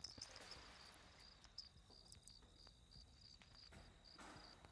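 Near silence, with a faint high-pitched chirping repeating evenly about four times a second over a faint steady high tone.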